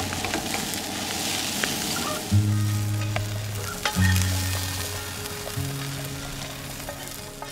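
Food sizzling as it fries in a pan, with a few light clicks of a utensil against the pan. Long low notes of background music sound underneath.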